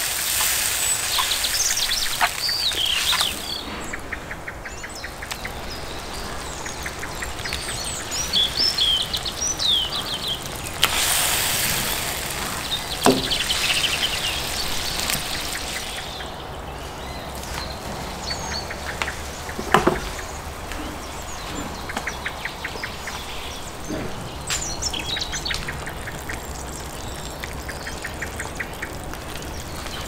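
Tomato sauce sizzling and bubbling in a cast-iron pot, with birds chirping and trilling around. A few knocks as the stuffed peppers are set into the pot, the loudest about twenty seconds in.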